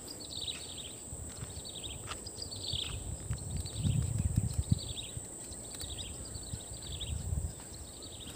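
Outdoor wildlife: a short, high descending trill repeated about once a second over a steady high-pitched insect drone. Low thumps of footsteps and wind rumble on the microphone underneath, strongest about four seconds in.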